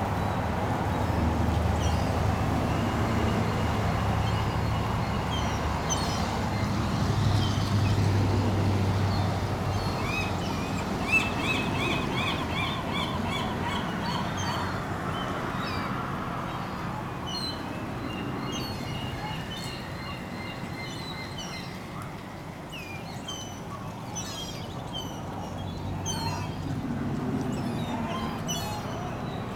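Gulls calling in strings of quick, repeated high cries, thickest around the middle and again near the end. A low, steady engine hum from a car moving slowly through the lot sits under them and is loudest in the first ten seconds.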